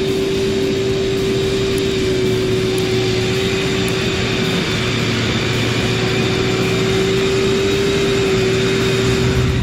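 An engine running steadily at high speed, a high steady drone that stops abruptly at the end.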